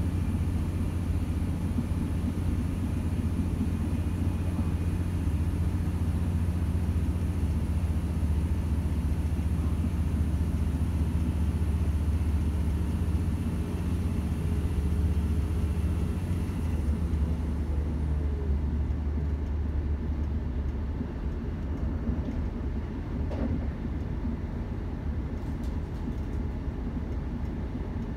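Class 170 Turbostar's underfloor inline-six four-stroke turbo diesel engine running under the train, heard from inside the passenger saloon as a steady low drone. A little over halfway through, a tone slides downward and the drone drops and quietens.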